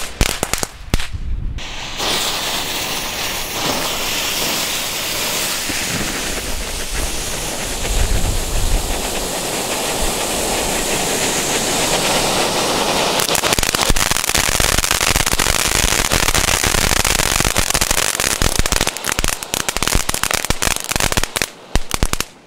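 Small crackling ground fountains (Lesli 'Crackling Vulkane') burning: a steady hiss of sparks peppered with dense crackling pops. The crackling is thickest in the second half and dies away near the end.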